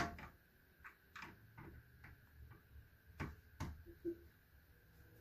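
Faint, irregular clicks and taps of a screwdriver turning in a plastic toilet-seat hinge bolt as it is tightened. The sharpest click comes at the very start, with a few more around three and a half seconds in.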